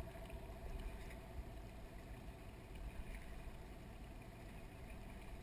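Faint low rumble of wind and water around a small aluminium boat, with a thin steady hum underneath and no distinct events.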